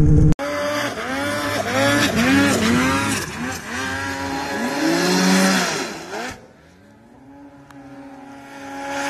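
Snowmobile engine revved in quick repeated throttle bursts, its pitch rising and falling several times a second. About six seconds in the engine sound drops away sharply, leaving a fainter steady engine tone that grows louder near the end.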